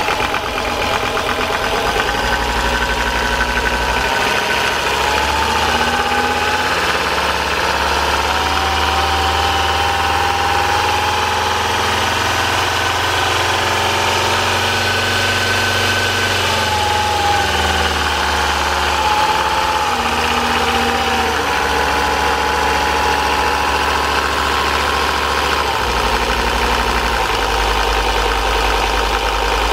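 Turbocharged inboard marine diesel engine running steadily at idle. Its low note shifts a few times, about four seconds in, midway and near the end.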